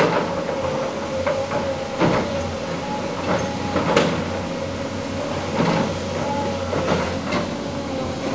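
Tracked excavator's diesel engine running with a steady whine, while irregular metallic clanks and knocks from its steel tracks and undercarriage come as it slews and travels over rubble.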